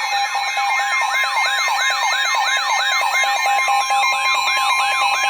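An electronic siren yelping in quick rising sweeps, about three a second, layered over a steady high alert tone like the weather radio's warning tone. The steady tone grows stronger near the end, just before a warning is read out.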